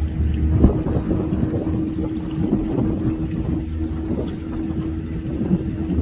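A motor, likely a boat's, running steadily with a low rumble beneath its hum, and one short sharp sound a little over half a second in.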